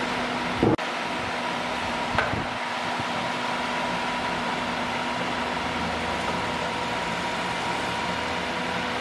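Steady workshop background hum and hiss. A single loud thump under a second in, as the metal gasoline can is set down, and a lighter click about two seconds later.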